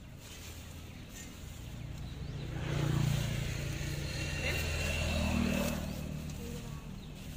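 A motor vehicle driving past. Its engine hum swells over the first few seconds, is loudest in the middle, then fades away.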